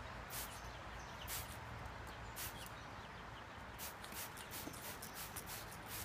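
Blue-fronted Amazon parrot flapping and shaking its wet wings: a few single feather-rustling flaps spaced about a second apart, then a fast run of flaps from about four seconds in, over a steady hiss.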